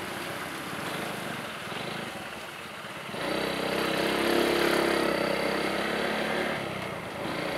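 Road noise of a ride along a wet concrete road: steady engine and tyre noise. From about three seconds in it grows louder, with an engine note, as the ride passes close by a truck and oncoming tricycles; it eases off again near the end.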